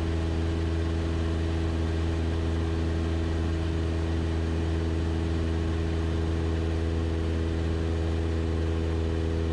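Cessna 172 Skyhawk's piston engine and propeller running steadily in cruise, heard inside the cabin as an even, unchanging low drone.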